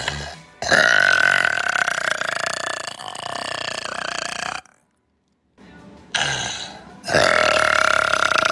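Two long burps, each held at a steady pitch for several seconds, with a brief silence between them: the first lasts about four seconds, and the second starts near the end.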